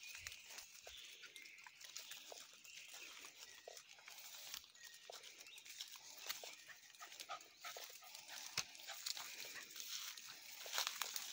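Footsteps crackling and rustling through leafy woodland undergrowth, with sounds from a dog close by.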